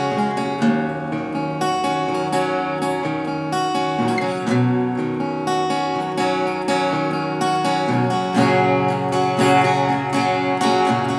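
Saga GS700R 38-inch acoustic guitar, with a solid Engelmann spruce top and sapele back and sides, played with the fingers in a continuous flow of plucked chords and notes.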